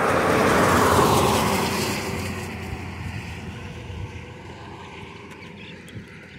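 A car driving past on the road. Its noise swells to a peak about a second in, then fades away over the next few seconds.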